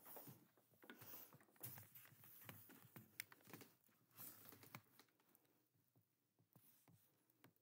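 Faint handling noise from a hand-held camera being moved about: scattered small clicks, knocks and rubbing, thinning out over the last couple of seconds.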